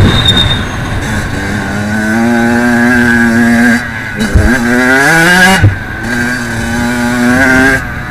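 Kawasaki KX85 two-stroke dirt bike engine revving hard on the throttle, its pitch climbing. The throttle is chopped about four seconds in, then again near six seconds, each time followed by a fresh rise in revs, with a brief knock between the two.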